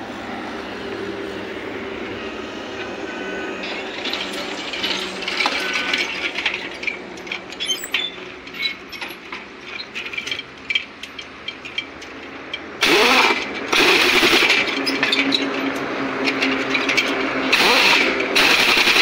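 Pneumatic impact wrench rattling on a truck's wheel nuts in long, loud bursts through the last third, after a stretch of scattered clicks and clanks of tools at the wheel hub. A steady mechanical hum runs underneath.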